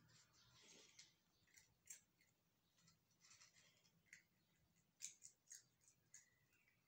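Faint, scattered small clicks and rustles, very quiet, from kittens squirming and licking one another on a fleece blanket.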